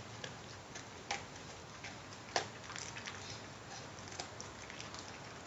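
Staffordshire Bull Terrier chewing a pig's ear: quiet, irregular crunches and clicks, the loudest about two and a half seconds in.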